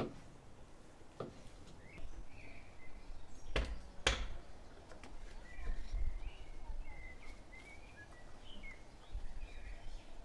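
Kitchen knife slicing tomatoes and knocking on a wooden log cutting board, a few scattered knocks with the two loudest about three and a half to four seconds in. Birds chirp in short calls between the cuts.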